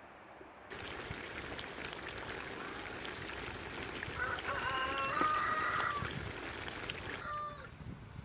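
Lamb pieces sizzling in a large pot, a steady crackling hiss that starts suddenly about a second in and drops away near the end. A bird calls several times through the middle.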